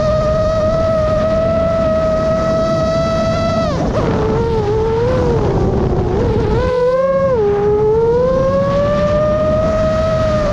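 Motors and propellers of a 7.5-inch FPV quadcopter whining at a steady pitch, which falls sharply about four seconds in, wavers, dips again around seven seconds and climbs back up, over a steady low rush.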